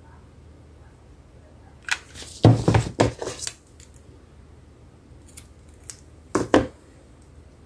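Hands working at a craft table: a cluster of sharp snips and knocks about two seconds in, two light clicks, then a short burst of knocks near the end.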